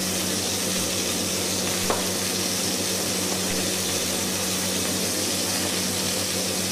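Mahi-mahi fillet sautéing in olive oil, sizzling steadily in the pan over a steady low hum, with one light knock about two seconds in.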